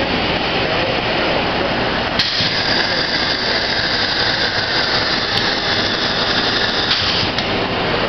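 Factory machinery running with a steady noise. A high-pitched whine starts suddenly about two seconds in and cuts off about five seconds later.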